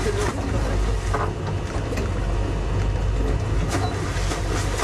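Engines of a Tiara 27 sportfishing boat running steadily under way: a constant low drone with a noisy rush of water and air over it.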